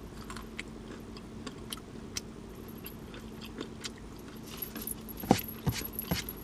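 Close-miked chewing of roasted peanuts: scattered small crunches and mouth clicks, denser and sharper about five seconds in, over a steady low hum.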